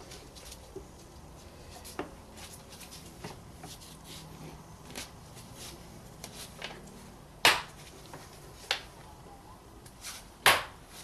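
Light plastic clicks and knocks of a new air filter being seated in a Toyota Prius airbox and the cover closed, with two louder snaps, one past the middle and one near the end, as the cover's clips are latched.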